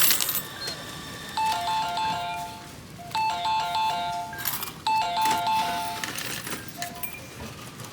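Semi-self checkout payment machine's electronic chime: a short melody of a few notes, repeated three times about every 1.7 s, prompting the customer to take change and receipt. A brief clatter comes just at the start.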